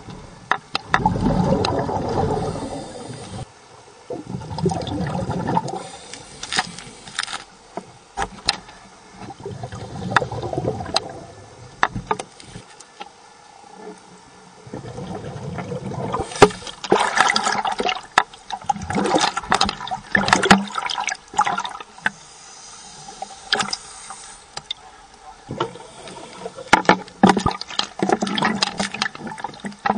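Underwater bubbling from a scuba diver's regulator exhaust, a burst every few seconds. From about halfway on it changes to water sloshing and splashing near the surface, with many sharp clicks.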